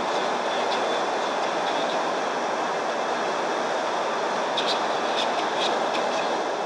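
Steady noise of a Shenzhen Metro Line 11 train heard from inside the car, with a few short, sharp clicks about two-thirds of the way through.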